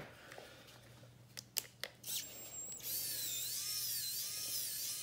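A few light clicks, then from about two seconds in a small cordless electric screwdriver runs with a steady whine whose pitch wavers up and down as it turns screws in a robot vacuum's plastic wheel-motor housing.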